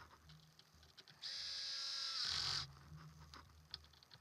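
Cordless electric screwdriver running at a steady pitch for about a second and a half, driving a screw into a plastic belt attachment, followed by a few light clicks.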